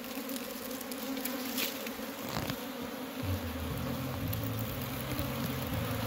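Honey bee colony buzzing steadily around its exposed comb, with a deeper hum joining about three seconds in.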